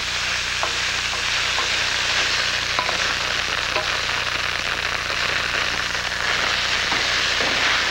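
Rope yuba sizzling steadily as it is stir-fried in a hot wok, frying until it browns, with a spatula scraping and turning it now and then.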